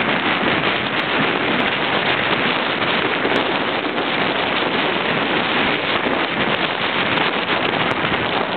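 Wind buffeting the microphone of a camera carried on a bicycle riding downhill at speed: a loud, steady rush of noise.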